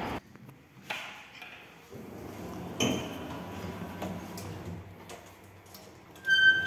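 A click and then a knock inside a passenger elevator car, then near the end a single electronic chime from the car, ringing briefly and fading.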